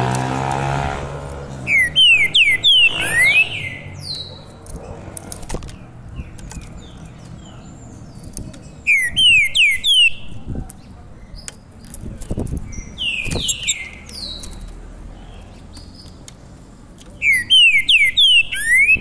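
Caged songbird singing loud phrases of four or five quick rising whistles, three times about seven seconds apart. Soft clicks and short calls fall between the phrases, and a low hum fades out in the first second.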